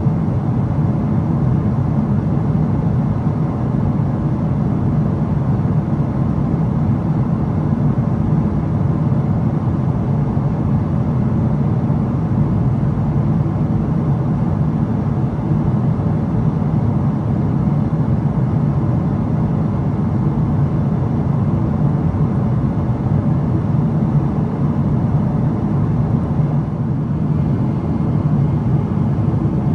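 Steady cabin drone of a Boeing 777-300ER cruising at altitude, heard inside the cabin beside its GE90 engine: an even, deep rumble of engine and airflow noise.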